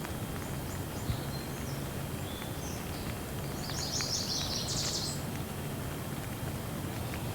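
Steady light rain with scattered small drip ticks, and birds chirping over it, with a quick run of high chirps about four seconds in.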